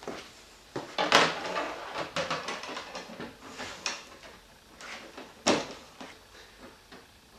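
Plastic windshield of a Yamaha Attak snowmobile being set back onto the cowl and pressed into place by hand: a series of sharp plastic knocks and clacks, the loudest about a second in and another about five and a half seconds in.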